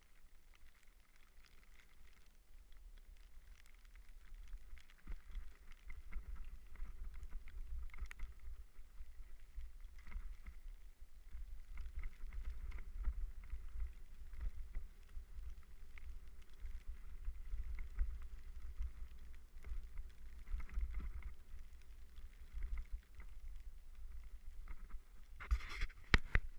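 Wind buffeting a bike-mounted or helmet camera's microphone on a mountain-bike descent, with the bike's tyres and frame rattling over rough trail. A short burst of sharp knocks comes near the end.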